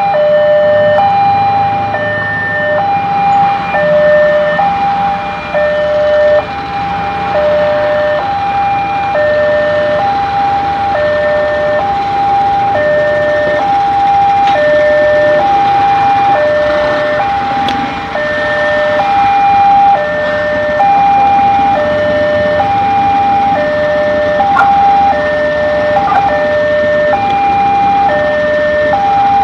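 Railway level-crossing warning alarm: an electronic two-tone signal, a higher and a lower tone alternating about every second, warning that a train is approaching.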